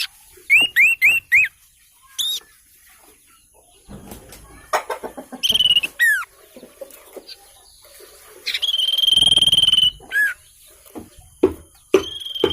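A sirtu bird calling: groups of quick, downward-sliding whistled notes, then a longer buzzy trill about nine seconds in. Scattered clicks and knocks follow near the end.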